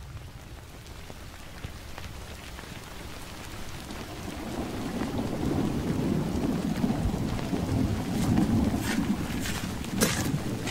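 Thunderstorm sound effect fading in: rain hiss under a swelling low thunder rumble, with a few sharp cracks near the end.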